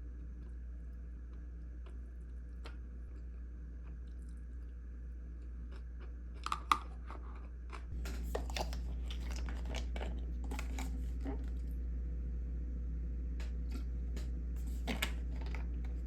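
A person chewing crunchy food: a few crisp crunches about halfway through, then steady crunching chews through the second half.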